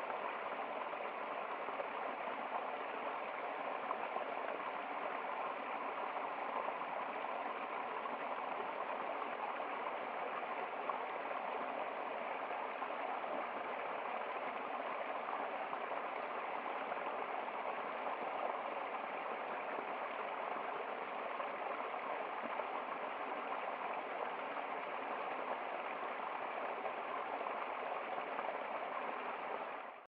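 Small waterfall on a rocky stream, water splashing steadily over the rocks into a shallow pool.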